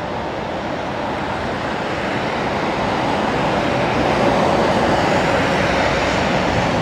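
Jet engines of taxiing Boeing 747s at taxi power: a steady rushing roar that grows gradually louder over the first few seconds, then holds.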